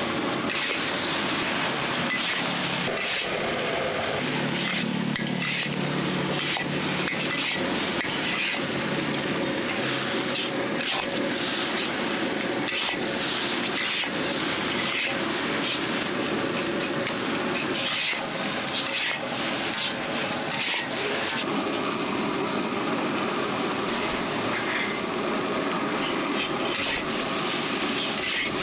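Fried rice cooking in a wok over a gas burner: a steady sizzling rush, with many short clanks and scrapes from a metal spatula against the wok.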